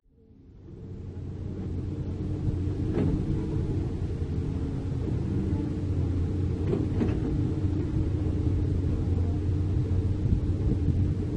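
Komatsu PC200 hydraulic excavator's diesel engine running steadily under load while it digs, a low drone with a steady tone above it, fading in over the first second or two. A few short sharp scrapes or clanks stand out about 3 and 7 seconds in, as the bucket works the soil and gravel.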